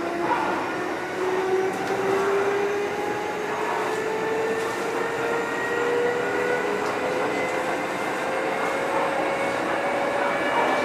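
Kintetsu 2430 series electric train heard from on board, gathering speed: its traction motors whine in several tones that climb steadily in pitch over a constant hiss and rumble of running noise.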